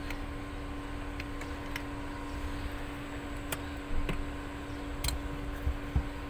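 Scattered sharp clicks and knocks of parts and tools being handled on the car, the loudest about four and six seconds in, over a steady electrical hum.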